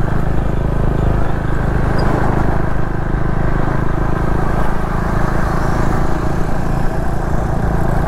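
KTM Duke motorcycle's single-cylinder engine running steadily while cruising at about 35 to 40 km/h, heard through a helmet-mounted mic together with the rush of riding wind.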